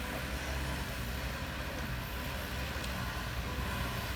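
Engine of a heavy construction machine running steadily: a constant low rumble with a faint steady whine above it.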